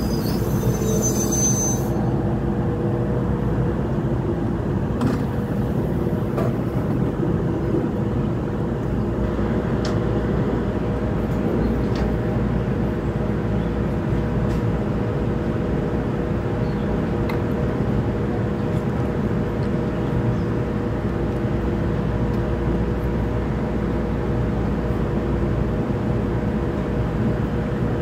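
NJ Transit Bombardier bilevel commuter train coming to a stop: a high wheel squeal fades out in the first two seconds. After that the standing train gives a steady low hum with several held tones.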